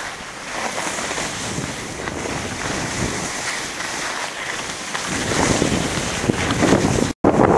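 Wind rushing on the microphone and skis sliding and scraping over snow on a downhill ski run, a steady rushing noise that grows louder about two-thirds of the way through. The sound cuts out for a moment near the end.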